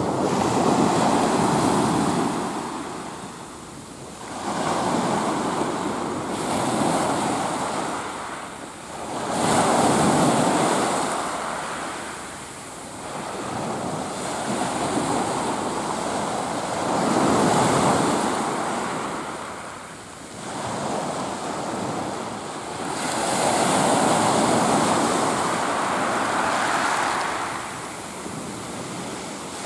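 Small sea waves breaking and washing up a pebbly sand beach, the surf swelling and falling back every few seconds.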